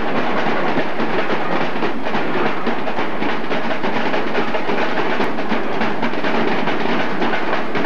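Marching drumline playing a fast, steady cadence of snare and bass drum hits, loud and dense with no break.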